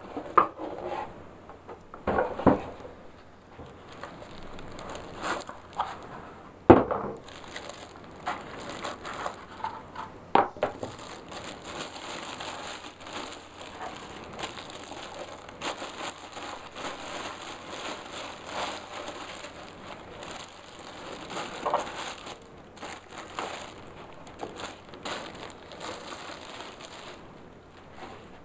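Plastic wrapping crinkling and rustling as it is pulled off a small MIDI keyboard, with scattered small clicks and one sharp knock about seven seconds in.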